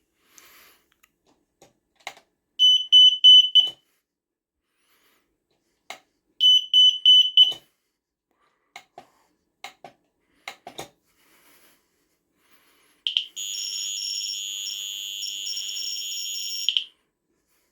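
Smoke alarm being tested: its piezo sounder gives two short bursts of rapid, shrill beeps, then near the end a continuous loud, high-pitched tone for about four seconds. Clicks and knocks from handling and pressing the test button come in between.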